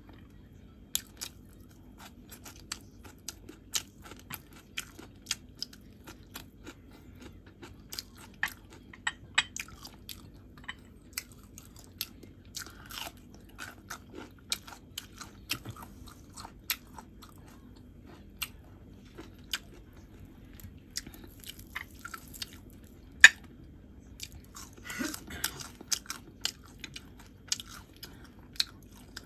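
Close-miked chewing and biting of crunchy raw vegetables, bean sprouts and bitter melon, heard as a dense run of irregular crisp crunches and sharp clicks. One loud crack comes about 23 seconds in.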